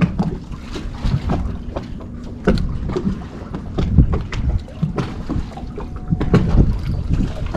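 Water slapping against the hull of a small open fishing boat, with wind buffeting the microphone and irregular knocks throughout.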